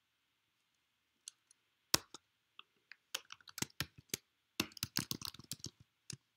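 Typing on a computer keyboard: irregular runs of key clicks that start about a second in, with brief pauses between runs.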